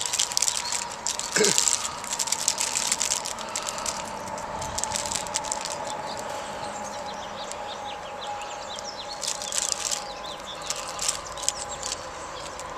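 Rustling, scraping and clicking as a bird-seed block is handled and fitted into a bird feeder, in irregular bursts, heaviest in the first few seconds and again near the end, over a faint steady hum.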